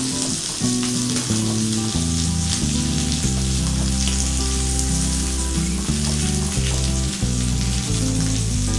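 Stuffed pomfret shallow-frying in oil in a flat pan, a steady sizzle, with sustained low background music tones that shift in steps under it.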